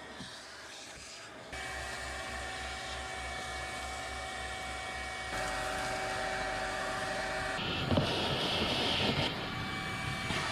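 Vacuum cleaner running, its hose and nozzle sucking along a truck cab's carpet and floor mats. A steady motor whine over a rush of air shifts abruptly in level and tone a few times. A louder, hissier rush lasts about a second and a half, about eight seconds in.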